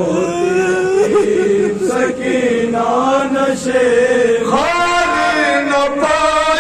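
Men chanting a noha, a Shia mourning lament, into microphones in long, drawn-out, wavering notes. About four and a half seconds in, the melody jumps up to a higher pitch.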